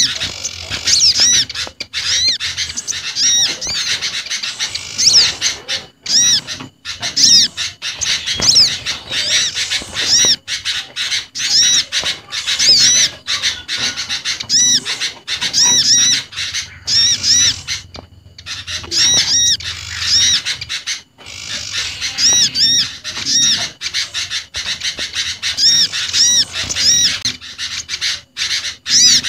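Bird-lure recording of small garden birds calling together, a mixed track of spiderhunter, prinia and bulbul calls. It plays as dense runs of high, arched chirps repeated over and over with harsher notes among them, and pauses briefly about 18 seconds in.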